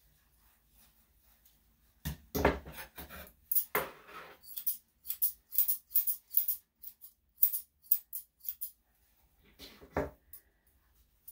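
Grooming scissors snipping through a small dog's matted coat: a quick, uneven run of short, sharp metal snips starting about two seconds in, with a few louder clacks among them.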